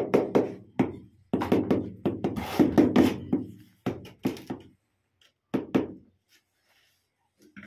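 A small steel trowel knocking and tapping against glazed ceramic wall tiles as mortar is worked into the joints: a dense run of sharp taps, then a few scattered ones, dying away about six seconds in.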